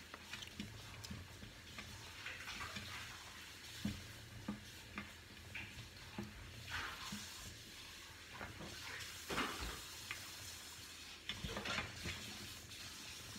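Faint, scattered handling sounds of a slime kit: light clicks from a spoon in a plastic cup and a few soft rustles of the paper packet.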